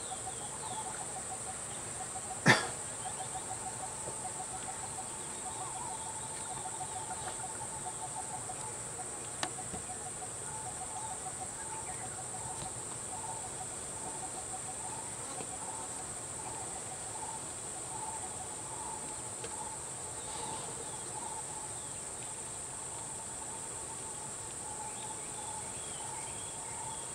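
Steady high-pitched insect drone, with a faint, rapidly repeating chirp beneath it. A single sharp click about two and a half seconds in, and a smaller one about nine seconds in.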